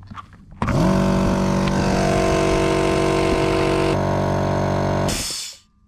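Air compressor motor starting, spinning up quickly to a steady, loud run, then winding down and stopping near the end.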